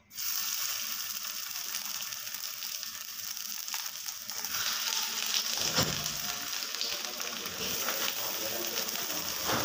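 Minced-meat seekh kababs sizzling steadily as they shallow-fry in hot oil in a nonstick frying pan, with a low knock a little past halfway.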